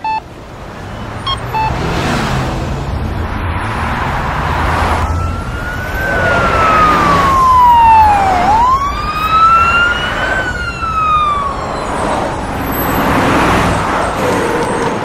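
Street traffic noise with an emergency vehicle siren in a slow wail: from about five seconds in its pitch rises, sinks slowly, climbs again and falls away before the last few seconds.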